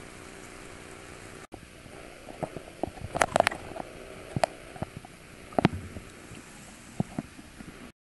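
Water lapping and plopping against a kayak hull: a steady hiss with a string of irregular sharp clicks and gurgling plops, thickest about three seconds in. The sound cuts off suddenly near the end.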